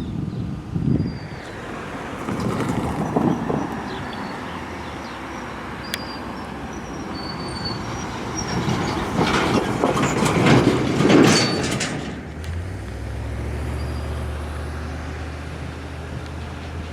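Freight train rolling past, wheels rumbling over the rails with short high-pitched squeals, loudest about nine to twelve seconds in. A steady low hum sets in shortly after.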